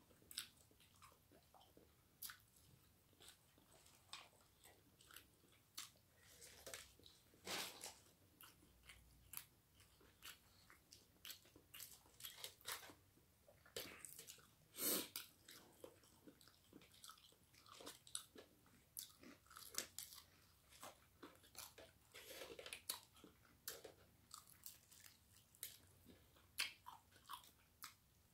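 Faint, irregular crunching and chewing of crispy breaded fried chicken being bitten and eaten by hand, with one louder crunch about halfway through.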